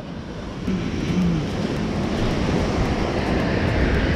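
Steady rushing noise of ocean surf on the rocks, with wind buffeting the microphone.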